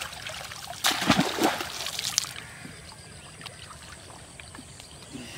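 Pond water splashing as fishermen wade and work a net by hand with a large fish in it: a loud splash about a second in, lasting about a second and a half, then trickling and dripping with small splashes.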